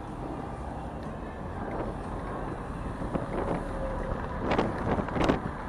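Wind rushing over the microphone of a camera on a moving bicycle in city traffic, with irregular clattering knocks from about halfway through, loudest near the end.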